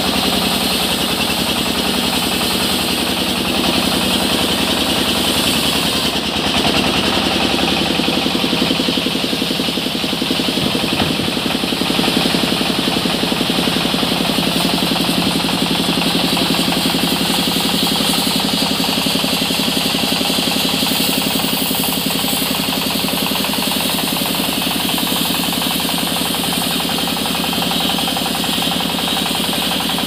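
Sawmill band saw ripping lengthwise through a mahogany beam: a loud, steady mechanical whine and rasp with a fast rattle running through it.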